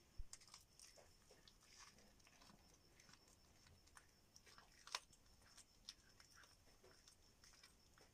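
Faint, irregular crunching and clicking of a cat chewing on a rat, with a sharper crack about five seconds in.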